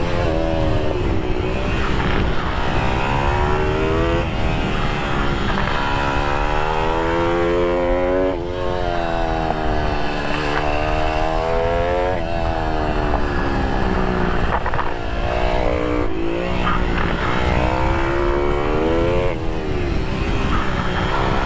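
IMR GP20 pit bike's engine at race pace, its pitch climbing again and again and dropping suddenly every few seconds as the throttle is worked through the corners. Wind rushes over the microphone throughout.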